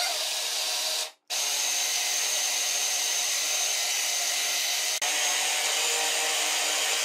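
Electric food processor motor running as it chops chicken mince: a run of about a second, a brief stop, then a steady run with a high whine.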